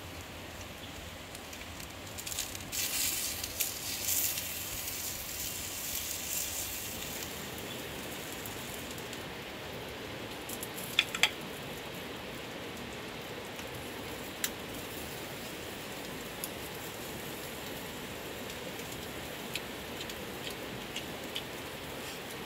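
Small fish sizzling on a flat stone heated by a wood fire burning underneath, a steady hiss with a burst of crackling a few seconds in. A few sharp clicks come about halfway through.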